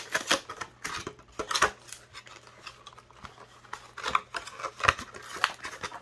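Stiff clear plastic blister packaging crackling and clicking as it is pulled apart and the metal multitool is worked out of it: irregular crinkles with several sharper snaps, the sharpest near the start and again about four to five seconds in.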